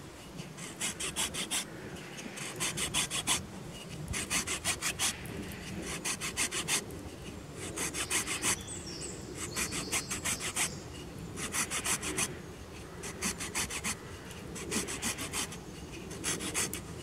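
Small folding saw cutting a shallow stop cut around a thin stick of sycamore. Short bursts of quick back-and-forth strokes, each burst about a second long, come with brief pauses between them.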